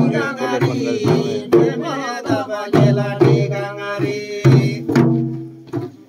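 Damphu frame drums beaten by hand, about two strokes a second, with men's voices going along with them.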